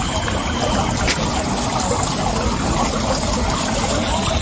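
Water from a stone fountain trickling and splashing into its stone basin, a steady, even splashing.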